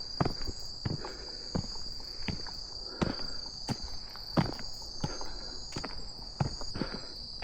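Footsteps walking at a steady pace, about one and a half steps a second, over a steady high-pitched insect chorus.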